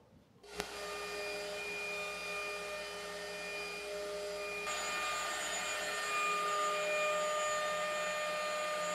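AVID 2448 PRO CNC router starting up with a click about half a second in, then its spindle running with a steady whine over the rushing air of the dust collection. About halfway through, the whine changes pitch and the sound gets a little louder.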